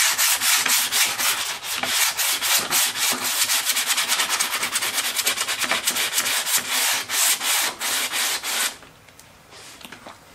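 80-grit sanding sponge rubbed in quick back-and-forth strokes over a plastic interior trim piece from a GM G-body car, sanding down spots of deteriorated, sun-faded plastic. The sanding stops suddenly near the end.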